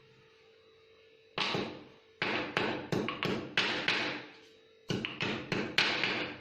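Stone pestle pounding holy basil leaves in a stone mortar to crush them: two runs of quick, sharp strikes, about six and then five, with a short pause between.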